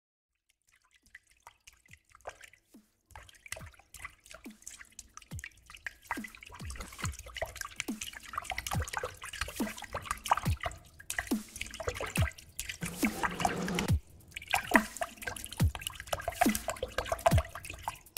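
Water dripping into standing water: irregular single drops, each a short plop that falls quickly in pitch. They become denser over the first few seconds and get busier and splashier for a moment around 13 seconds. This is the waterlogged state of ground after weeks of continuous rain.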